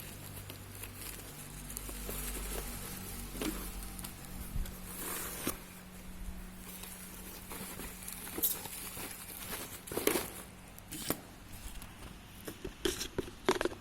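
Plastic wrapping and bubble wrap around a laptop LCD panel being handled and peeled open: intermittent rustling and crinkling with scattered small clicks and taps, louder bursts about five, ten and thirteen seconds in.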